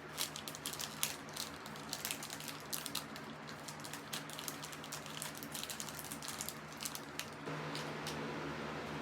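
Chocolate bar wrapper crinkling and crackling in irregular sharp clicks as a Feastables bar is unwrapped; it stops about seven seconds in, leaving a steady low hum.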